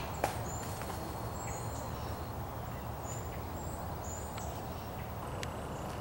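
Woodland ambience: scattered short, high bird chirps over a steady low rumble of wind, with a light knock just after the start and a few fainter clicks.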